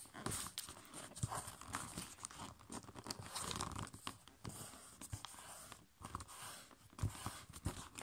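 A5 copy paper being folded by hand on a tabletop: irregular rustling and crinkling as a flap is folded up and pressed flat, with small clicks and taps.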